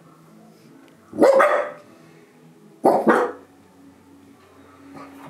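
Small curly-coated dogs barking at something outside the window: two short bursts of two or three quick barks each, about a second and a half apart.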